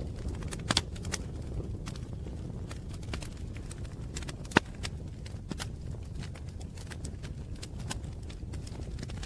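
Wood fire crackling: irregular sharp pops and snaps over a steady low rumble, with one louder pop about halfway through.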